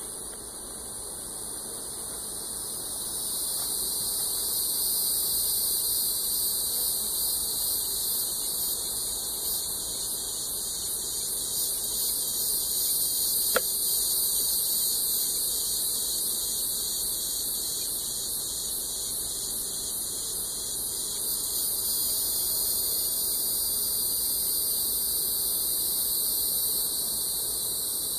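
Steady high-pitched chorus of insects trilling, with a fast pulsing layer that comes in about three seconds in and eases off past the twenty-second mark. A single sharp click about halfway through.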